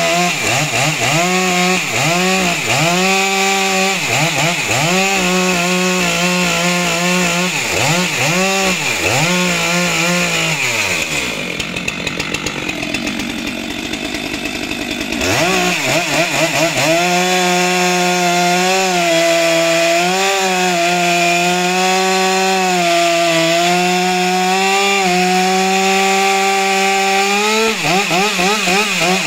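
Stihl MS462 two-stroke chainsaw cutting through stacked firewood. For the first ten seconds it revs up and bogs down about once a second, then drops to a low idle for a few seconds. It then revs up again and holds a high, steady pitch through a long cut, with surges of revving near the end.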